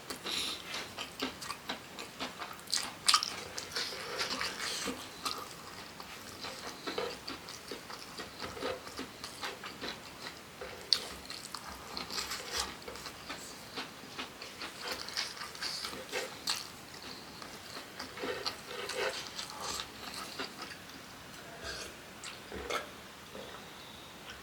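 Close-miked eating sounds: a person chewing and biting food, with many irregular short mouth clicks and smacks.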